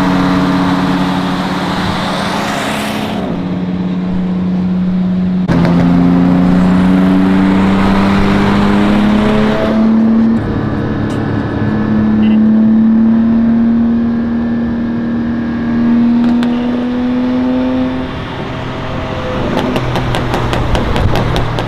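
Car engines running and pulling, in clips that jump from one to the next. The pitch climbs slowly over stretches of several seconds, and a quick run of clicks comes near the end.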